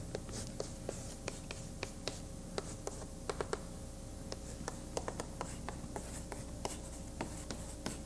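Writing by hand: irregular short taps and scratches of the writing tool, several a second, over a faint steady hum.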